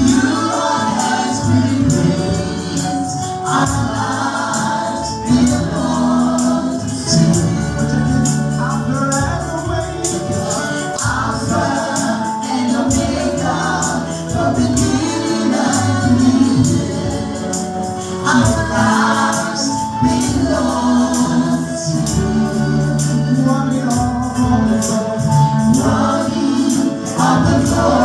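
Gospel choir singing with a tambourine keeping a steady beat over low sustained accompaniment notes.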